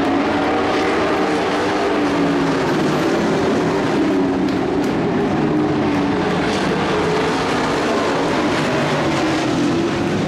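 Racing engines running hard as race vehicles lap the track. Several engine notes rise and fall as the vehicles pass.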